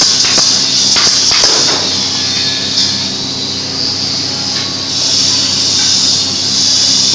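Pneumatic brad nailer firing several quick shots into plywood in the first second and a half, over a steady hiss and hum.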